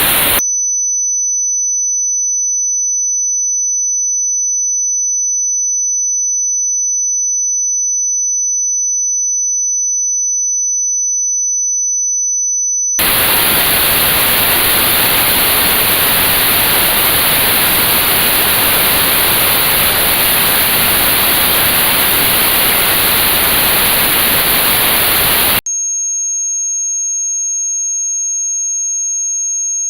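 Tinnitus frequency test sounds: a steady high-pitched pure tone near 6 kHz for about twelve seconds, then notched white noise (hiss with a band cut out around that pitch) for about twelve seconds, then a slightly higher pure tone near the end. Each part switches on and off abruptly.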